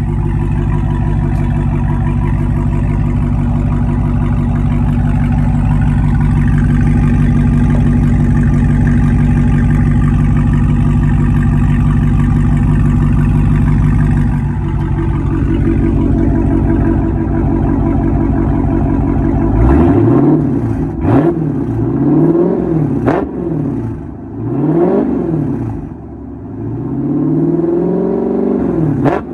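Dodge 392 Scat Pack's 392 HEMI V8 idling steadily as it warms up, the idle note shifting about halfway through. In the last third it is blipped about five times, each rev rising and falling in pitch.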